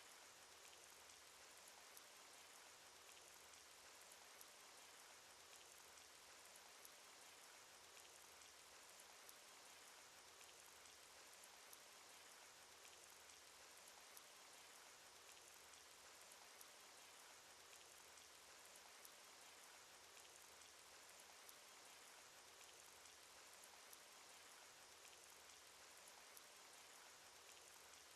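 Faint, steady cartoon rain sound effect: an even hiss of rainfall with many small drop ticks scattered through it.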